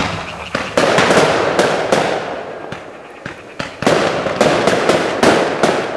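Fireworks fired close at hand: about a dozen sharp bangs in quick succession, with dense crackling between them. The loudest flurries come about a second in and again about four seconds in.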